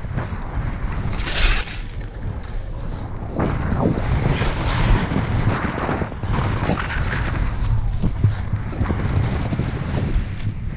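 Wind buffeting a GoPro's microphone while skiing downhill: a steady low rumble. Over it come several hissing swishes from Rossignol Soul 7 skis turning through fresh snow, the strongest about a second and a half in.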